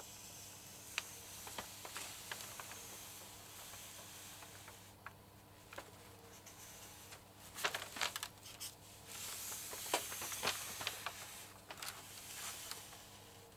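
Marker pen drawing lines on brown paper: a faint scratchy hiss that stops briefly about five seconds in as the pen lifts, with a few short clicks and paper rustles in the second half.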